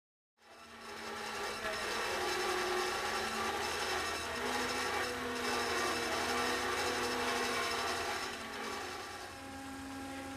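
Claxton hydraulic bandsaw blade cutting through a rusty steel pipe: a steady rasping grind with a hum under it, starting about half a second in and easing slightly near the end.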